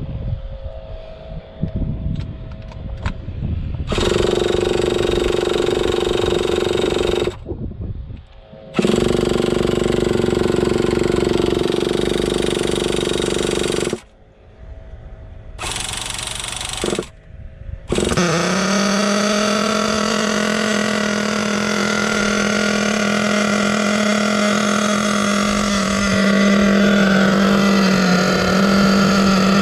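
Small two-stroke nitro engine of an HPI Savage X 4.6 RC truck being spun over to start in three bursts with pauses between them. It catches about 18 seconds in and then idles steadily, a little louder near the end.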